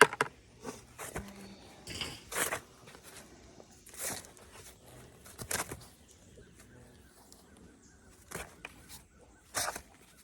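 Dry corn leaves and husks rustling and crackling in short, irregular bursts, the sound of picking ears of sweet corn by hand among the stalks.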